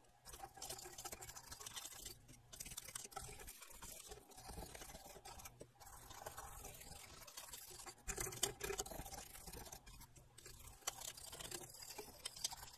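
Acid brush wet with acetone scrubbing corrosion off a receiver's amplifier circuit board: faint, quick scratchy bristle strokes, a little louder about eight seconds in.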